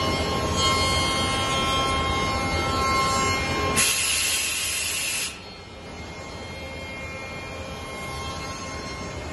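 Hundegger Robot-Drive CNC timber joinery machine running, its robot-arm spindle machining a timber beam with a steady high whine of several tones. A loud hiss lasts about a second and a half from about four seconds in. After it cuts off, the machine runs on more quietly.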